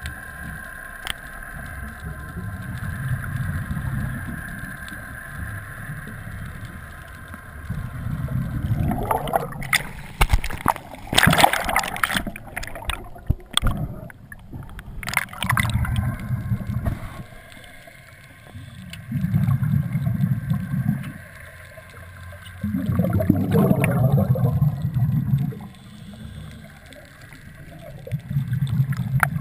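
A scuba diver's exhaled bubbles rumbling out of the regulator in bursts of about two seconds, every few seconds, heard through an underwater camera housing. Water splashes and sloshes around the middle as the camera breaks the surface beside the boat's ladder. A faint steady tone fades out in the first few seconds.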